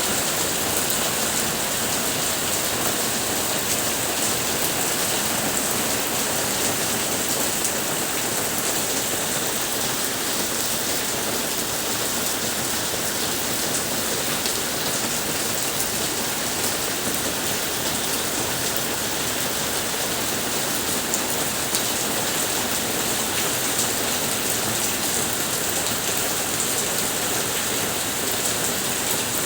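Monsoon rain falling steadily, an even patter of drops on surfaces with no let-up or change in strength.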